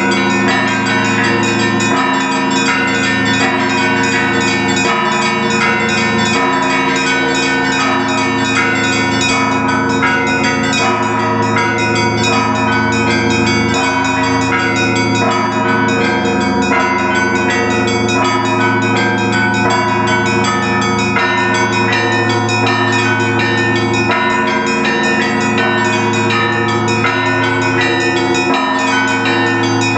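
Russian Orthodox peal from the St. Sophia Cathedral belfry bells: many bells struck in rapid, overlapping strokes over the steady deep hum of the large bells.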